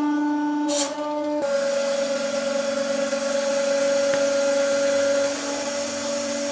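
Hydraulic press pump motor running with a steady whining hum; about a second and a half in its tone dips slightly and grows noisier.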